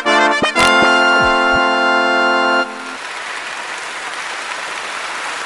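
Short electronic jingle of quick notes and falling slides that settles into a held chord, which cuts off about two and a half seconds in. An even wash of sound-effect applause follows.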